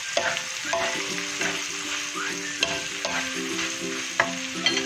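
Stir-frying shredded cabbage with shrimp in a wok: a steady sizzle with scrapes and light taps of a wooden spatula against the pan. Quiet background music plays underneath.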